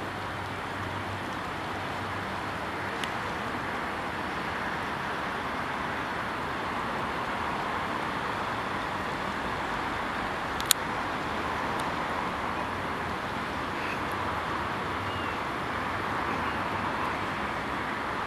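Steady hum of distant city traffic, with one sharp click a little past halfway.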